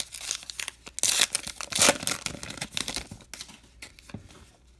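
A baseball card pack's wrapper torn open and crinkled by hand. The loudest tearing comes about one to two seconds in, and the rustling dies away near the end.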